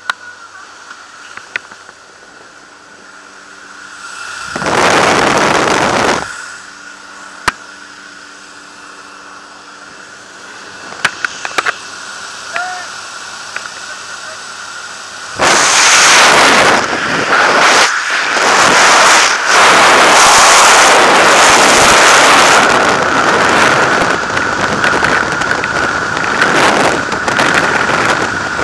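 Jump-plane cabin with a steady engine drone, a loud rush of air for about two seconds some five seconds in, and a few sharp clicks. About halfway through the skydivers exit, and loud freefall wind rushes and buffets the helmet-camera microphone.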